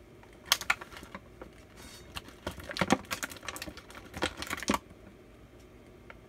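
Irregular runs of sharp, light clicks and taps, like small hard objects being handled, starting about half a second in and stopping just before five seconds in.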